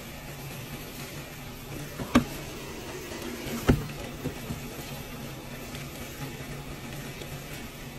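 Top-loading washing machine filling, water pouring into a sudsy drum of laundry over a steady low machine hum. Two sharp knocks come about two and three and a half seconds in.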